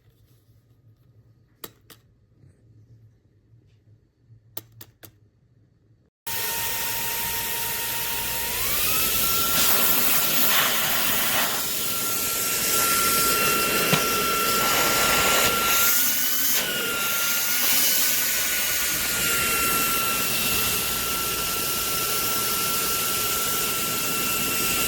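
Fanttik V8 Apex cordless handheld car vacuum: a few faint clicks, then the motor switches on suddenly with a steady, high whine and rush of air. About two seconds after it starts, the whine steps up in pitch, typical of switching from the low to the high mode, and it holds there until the motor cuts off.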